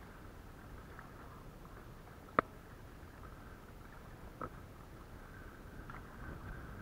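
Kayak paddle knocking against the hull: one sharp knock about two and a half seconds in and a softer one about two seconds later. A faint steady high hum runs in the background.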